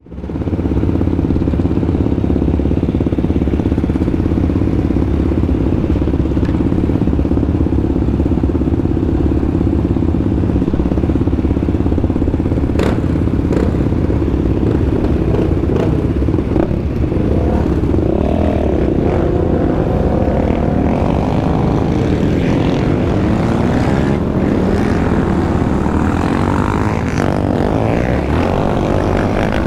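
Quad (ATV) engine running loud and steady at a fairly constant speed. Its pitch wavers a little past the halfway point, and there is one sharp click about 13 seconds in.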